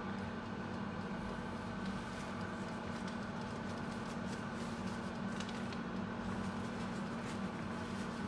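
Rapido air fryer running, its fan giving a steady hum as it cooks.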